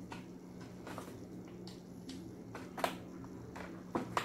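Light clicks and rustles of a phone's charging cable and plug being handled and turned over in the hands, a few sharper taps among them. A steady low hum sits underneath.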